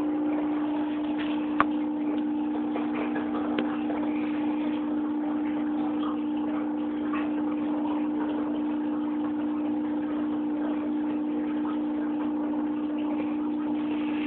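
Aquarium pump humming steadily, with water bubbling and trickling in the tank. A sharp click sounds about a second and a half in, and a fainter one about two seconds later.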